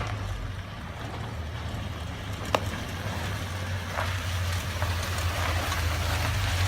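Car engine running with a steady low hum, and a single sharp click about two and a half seconds in.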